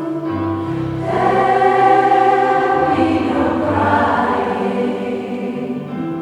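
A choir singing in layered harmony on long held notes.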